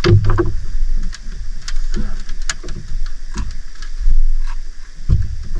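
Irregular knocks and clicks over a steady low rumble, with one strong knock about four seconds in: handling noise aboard a small fishing boat.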